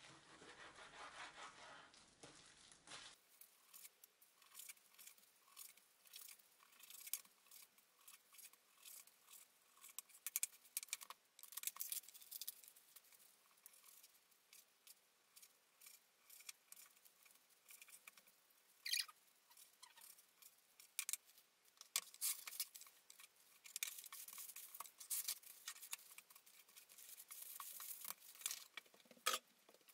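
Kitchen knife cutting raw chicken on a plastic cutting board: quiet, scattered taps and scrapes of the blade on the board, with rustling of thin plastic gloves and bags.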